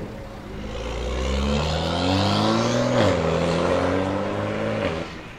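BMW M2 F87's turbocharged straight-six with an aftermarket sport exhaust accelerating hard. The pitch climbs, drops sharply about three seconds in as it shifts up, then pulls again and fades.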